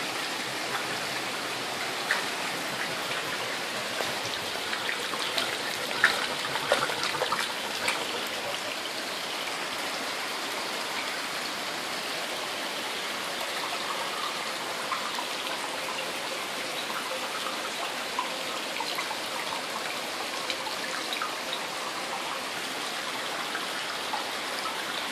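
Steady rush of water, with scattered sharper drips and splashes on top, a cluster of louder ones about six to eight seconds in.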